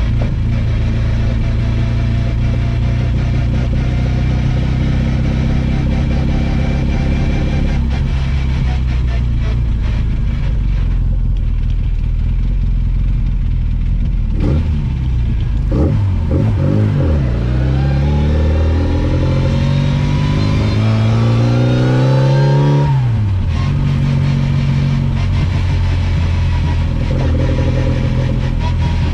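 Classic Mini's 1380 cc A-series four-cylinder engine heard from inside the cabin, running steadily. About halfway through the revs drop, then climb for about six seconds before falling away sharply and settling back to a steady pace.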